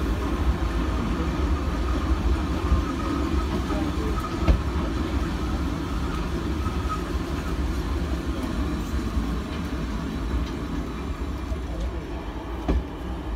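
Heritage train running along the rails: a steady rumble of wheels on track, with a couple of sharp clicks, one about four and a half seconds in and another near the end.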